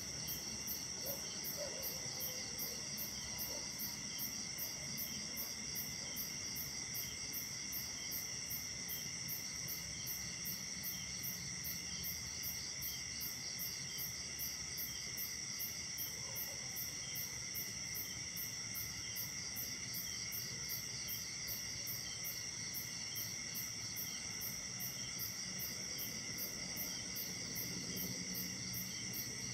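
Night chorus of crickets and other insects: several steady, high-pitched trills at different pitches, one of them pulsing at about two beats a second.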